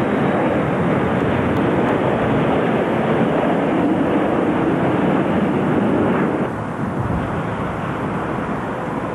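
Steady jet roar of a Boeing 727's three Pratt & Whitney JT8D turbofans as it passes low on approach with gear down. About six and a half seconds in the sound cuts to a quieter, more distant jet noise from a Boeing 767-200 on approach.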